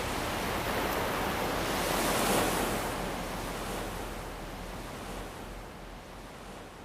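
Ocean waves breaking and washing in, swelling about two seconds in and then gradually fading away.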